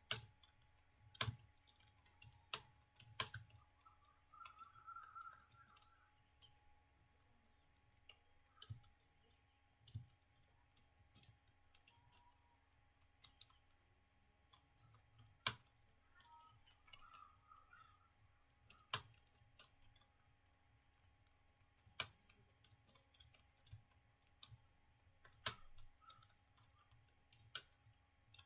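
Slow, irregular keystrokes on a computer keyboard: single sharp key clicks every second or few seconds, with longer pauses between some.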